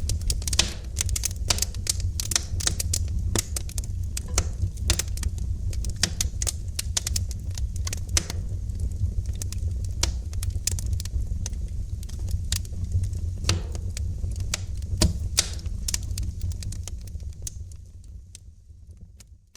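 Wood fire crackling and popping in a fireplace: many quick, irregular snaps over a steady low rumble. It fades out over the last couple of seconds.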